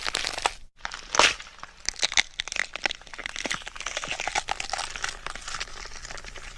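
Blood and gore sound effect: a dense run of crackling and clicking, cut to silence for a moment a little under a second in, with a louder burst just after.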